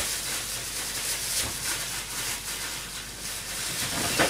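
Steady background hiss with a soft knock about a second and a half in and a sharper knock near the end.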